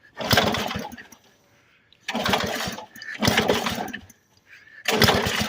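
Old lawnmower engine being cranked in four short bursts, turning over without catching and running. The owner suspects it won't run because there is too much oil mixed in the gas.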